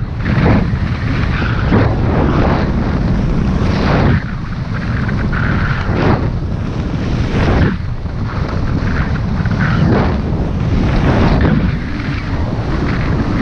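Wind rushing over the camera microphone as a skier descends, with skis hissing through the snow in swells that come every second or two with each turn.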